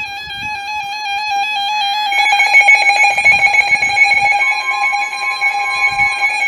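Weather radio alert alarm sounding before a warning: a loud electronic tone with a harsh, buzzy edge, warbling in quick small steps. A second, brighter layer comes in about two seconds in, and a steady higher tone joins for a couple of seconds near the end.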